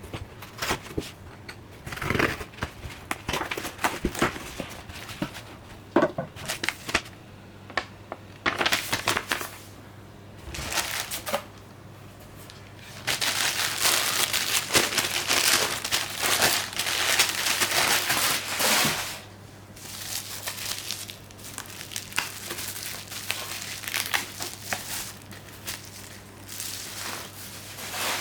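Packaging being handled and unwrapped by hand: plastic and paper crinkling and rustling in irregular bursts, with a longer continuous stretch of crinkling about halfway through.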